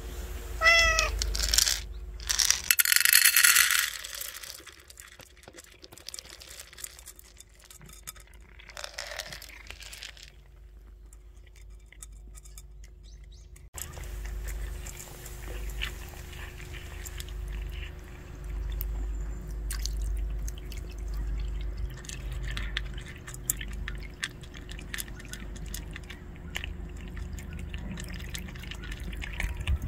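A tortoiseshell cat meows once near the start, then dry kibble is poured into a plastic bowl with a loud rattling rush about two seconds in. Later the cat eats the kibble with many small crunches and clicks, over a low steady rumble, and near the end water is poured from a plastic bottle into its water bowl.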